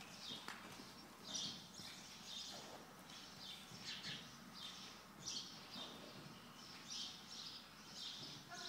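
Small birds chirping repeatedly, short high chirps about once or twice a second.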